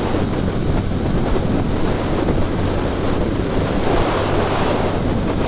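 Wind rushing over the microphone of a motorcycle riding at highway speed, a steady roar with a low hum underneath.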